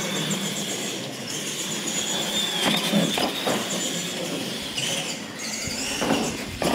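Electric RC monster trucks racing on a concrete floor, their motors and gears whining, the pitch rising and falling with the throttle.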